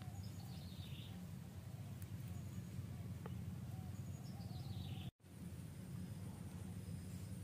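Forest ambience in which a bird calls twice, each time a quick run of chirps falling in pitch, over a steady low background noise. A steady high-pitched whine joins after the sound drops out for a moment about five seconds in.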